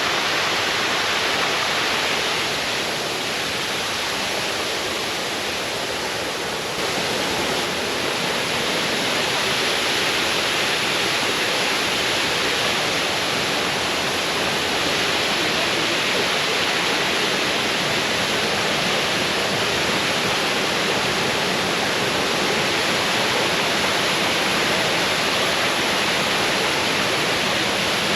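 Waterfall rushing: a steady, loud wash of falling water with no breaks.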